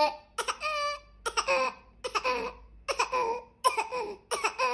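A baby fake-coughing for attention: about six short, high-pitched coughs in quick succession, each with a sudden start and a brief voiced tail.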